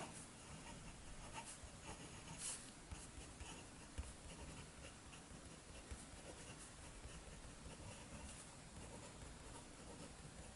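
Faint scratching of a Pineider Avatar fountain pen's medium steel nib moving across 120 gsm paper as words are handwritten, with many small ticks from the strokes.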